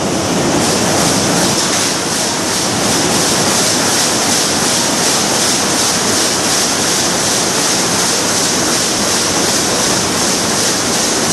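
Zangs 117R Schiffli embroidery machine running on its retrofitted servo drive system: a loud, steady mechanical noise that does not let up.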